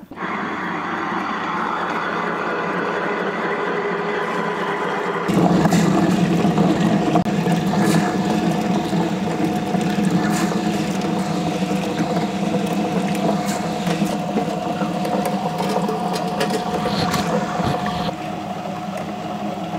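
Tabletop wet grinder running, its stone rollers turning in the steel drum as soaked raw rice and sago are fed in to be ground into a fine batter. A steady motor hum, louder from about five seconds in.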